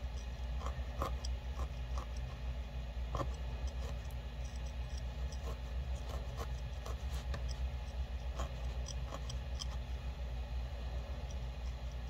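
Felting needle repeatedly stabbing into a tiny piece of wool against a felt pad: light, irregular ticks and pokes, a few a second, over a steady low hum.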